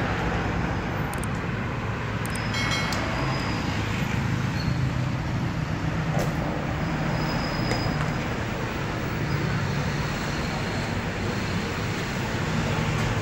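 Steady road traffic noise from a busy street.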